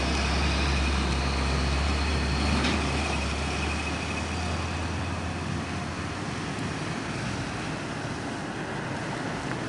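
Heavy flatbed truck's diesel engine running with a steady low drone as it pulls away round the bend, fading out about four to five seconds in, followed by lighter passing traffic and road noise.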